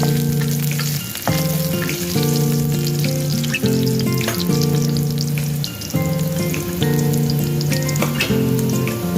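Food frying and sizzling in a pan, with fine crackling, under background music of sustained low notes that change about once a second.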